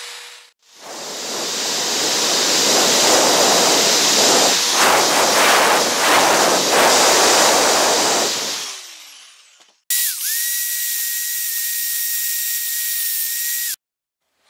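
A handheld power grinder runs with a loud, even hiss as it grinds the axe head's weld areas and eye clean. Its pitch falls as it winds down at about nine seconds. After a short gap, a steady high-pitched whine runs for nearly four seconds and cuts off suddenly.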